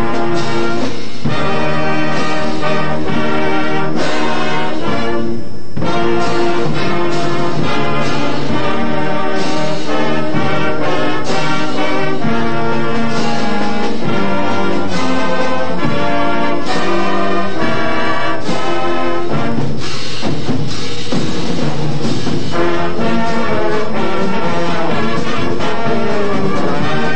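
High school marching band playing a brass-led piece, with trombones and trumpets to the fore, recorded in the band room.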